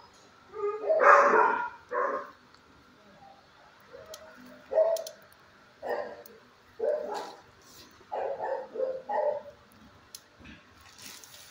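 Dog barking in a series of short barks, one every second or so, the loudest about a second in and a quick run of barks near the end.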